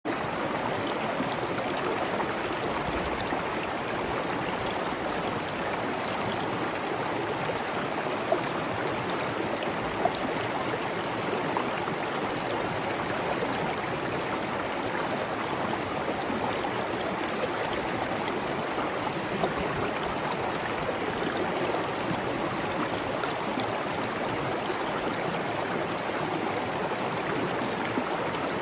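Waterfall: a steady, even rush of falling and flowing water, with a few brief louder splashes standing out.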